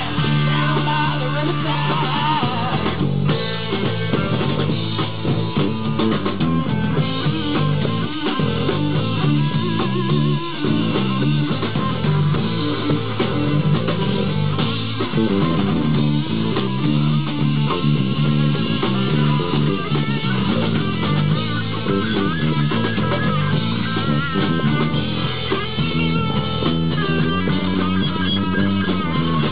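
Live rock band playing: electric guitar over a drum kit, with a custom purpleheart DP bass guitar carrying the low notes.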